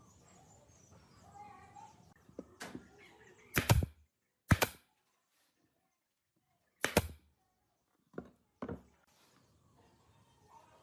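About six sharp knocks at uneven intervals, the loudest pair in the middle, with near silence between them.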